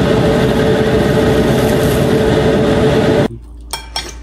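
Loud steady machine-like noise with a constant hum, cutting off abruptly a little after three seconds in, followed by a few faint clicks.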